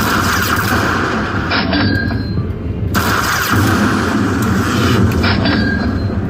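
Lightning Link slot machine sounds: a loud, continuous rumbling run of game noise, with a short high chime about a second and a half in and again near the end.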